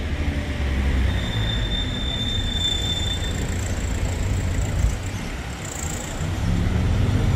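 Ambulance engine running as it pulls away and drives off, a low steady rumble, with a thin high tone from about one to three seconds in.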